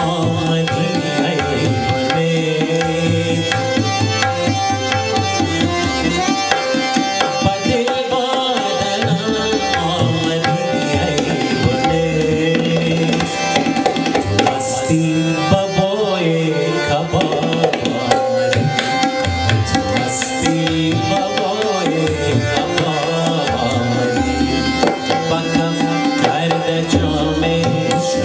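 Harmonium and tabla playing Afghan ghazal music: the harmonium's steady reedy chords under a busy tabla rhythm.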